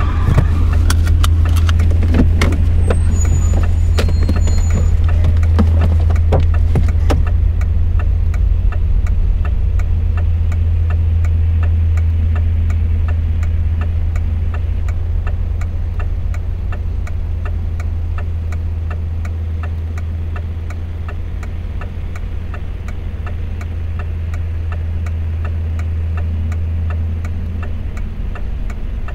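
A car engine idling with a steady low hum inside the stopped car, under an even, regular ticking at about two ticks a second. Scattered clicks and knocks sound in the first several seconds.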